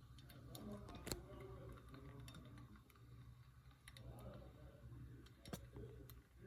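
Faint, scattered clicks and light taps, sharpest about a second in and again near the end, over a steady low hum and faint muffled voices in the background.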